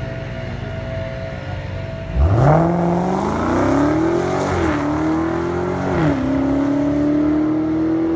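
Dodge Challenger SRT Hellcat's supercharged 6.2-litre V8 idling at the drag-strip start line, then launching about two seconds in at full throttle. The engine note climbs steeply, drops sharply at an upshift about four and a half seconds in and again about six seconds in, and climbs after each shift.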